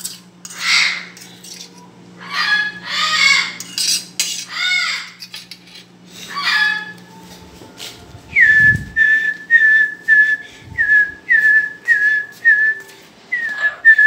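A parrot squawks, a series of harsh calls, then a run of short whistled notes follows, each sliding down onto the same pitch at about two a second. A dull thump comes just as the whistles begin.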